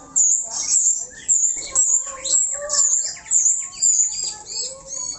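Birds chirping: a rapid run of high-pitched chirps, about two a second.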